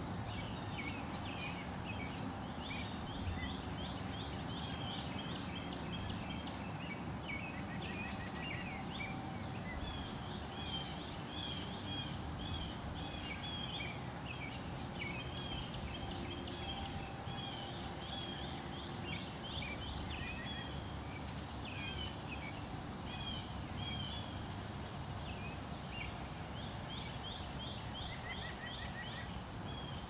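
Several songbirds singing and calling together: busy chirps, quick trilled runs of notes, and a short high note repeating every second or two, over a steady low background rush.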